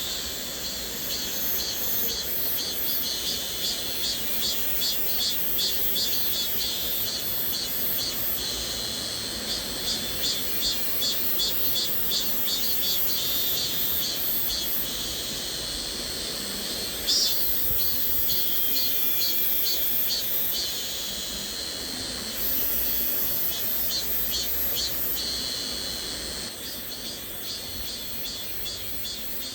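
Cicadas shrilling high, their chorus pulsing in quick waves a few times a second and swelling and easing over stretches of several seconds, over the low steady rush of a mountain stream. A single sharp tick comes a little past halfway.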